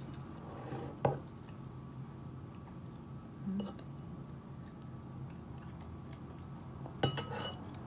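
A metal fork clinking against a bowl while eating: one sharp clink about a second in and a louder clink with a brief scrape near the end, with quiet chewing between.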